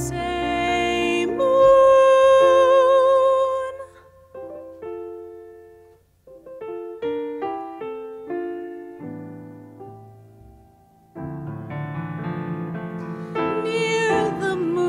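A woman sings with vibrato over piano accompaniment, ending a phrase on a long held note. The piano then plays alone for several seconds, and she starts singing again near the end.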